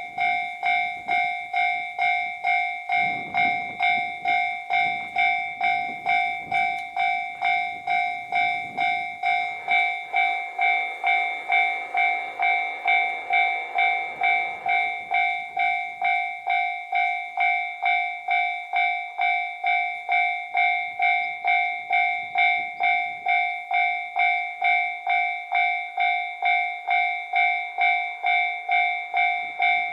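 Japanese railway level crossing's electronic warning bell starting up suddenly, then ringing steadily at about two dings a second as the crossing warns of an approaching train. A low rumble comes and goes during the first half.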